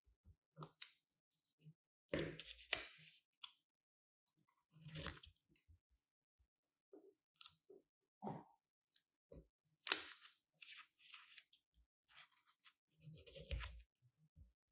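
Scissors snipping through glossy paper in a run of separate crisp cuts a second or two apart, with the rustle of the cut paper pieces being handled between them.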